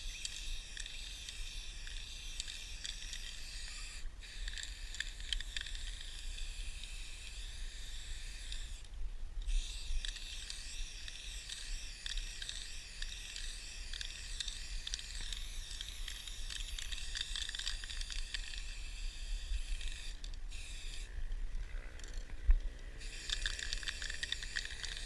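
Aerosol spray paint can hissing in long continuous bursts, stopping briefly several times between strokes. There is a single sharp knock near the end.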